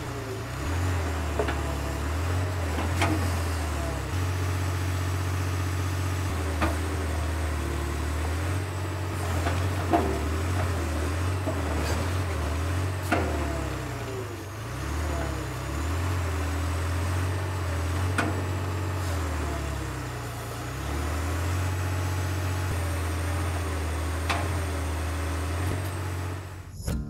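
Liebherr R942HD excavator's Deutz diesel engine running under working load, its low note dipping and recovering every few seconds as the hydraulics work the arm. The bucket gives half a dozen sharp clanks and knocks as it digs soil and strikes rock.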